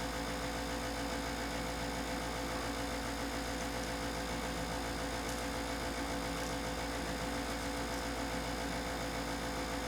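Steady background hum with a few fixed tones, even and unchanging throughout.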